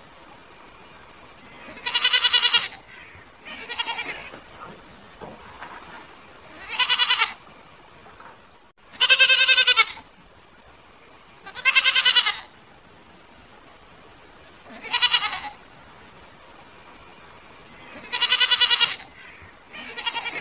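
Goats bleating: about eight separate bleats, each under a second long with a quavering pitch, spaced a few seconds apart.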